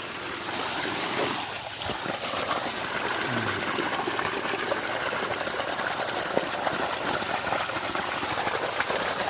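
Water gushing steadily out of the discharge hose of a small Honda-engined water pump, the engine throttled to under half.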